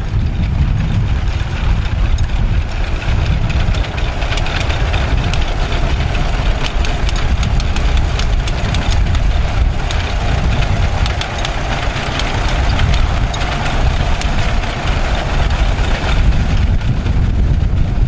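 John Deere two-cylinder tractor engine running steadily while pulling a grain binder, with the binder's sickle and mechanism rattling and clicking throughout as it cuts grain.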